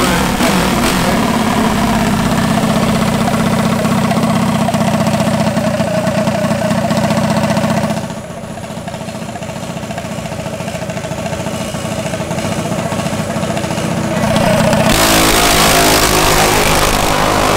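Drag minibike's single-cylinder engine running steadily. After a quieter stretch, it gets much louder about fifteen seconds in as the bike launches off the line.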